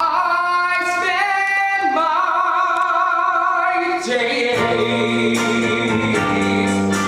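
A musical-theatre song performed live on stage: singing with accompaniment, with long held notes, some of them wavering. A low bass part comes in about four and a half seconds in.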